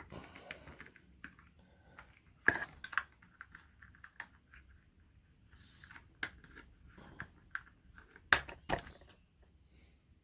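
Irregular plastic clicks and taps from fitting a rechargeable battery into a toy remote-control car's battery compartment, with sharper knocks about two and a half seconds in and a cluster near the end.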